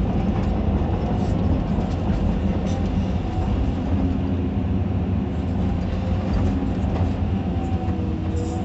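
Caterpillar 320D2 hydraulic excavator heard from inside its cab, its diesel engine running steadily under load with a faint whine that drifts slightly in pitch as the boom and bucket dig into soil.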